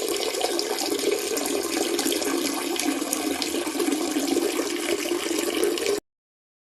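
Steady rushing of running water, like a tap or a flush, that cuts off abruptly about six seconds in, leaving dead silence.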